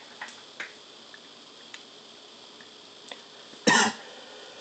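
A person coughing once, loud and short, a little over three and a half seconds in. Before it, a few faint ticks over a low steady background.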